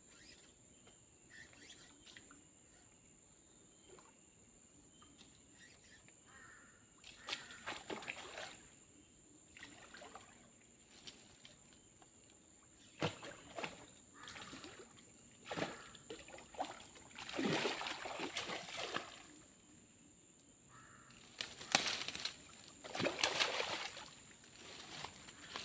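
Water splashing and sloshing in short irregular bursts, repeated several times after a quiet start, the loudest ones near the end.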